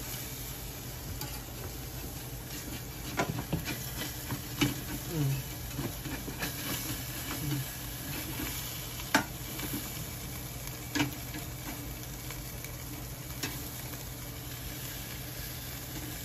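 Yellowtail fish sizzling on an electric grill while a wooden spatula and fork scrape and click against the metal grill rack, with a handful of sharp clicks in the middle of the stretch.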